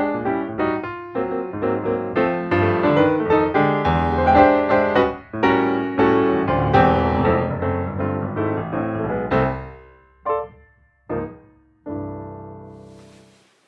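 Background piano music with quick runs of notes, slowing near the end to a few separate chords and finishing on a held chord that fades away.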